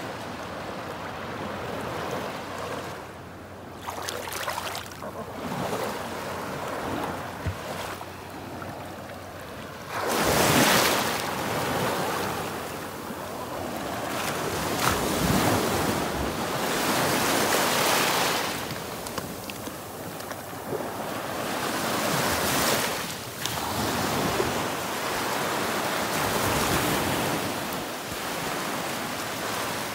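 Gentle sea surf: small waves breaking and washing over the sandy shallows, swelling louder and ebbing back every few seconds, loudest about a third of the way in.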